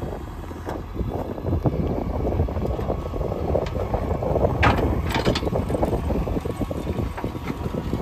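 JCB 3DX backhoe loader's diesel engine running under load as the machine works at a large boulder, with a stream of knocks and scrapes of metal and rock; a sharper, louder clank-and-scrape comes about five seconds in.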